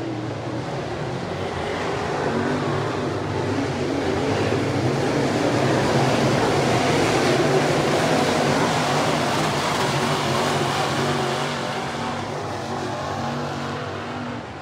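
Dirt late model race cars running at speed around a dirt oval, their V8 engines swelling as the pack comes past about midway and fading as it moves off.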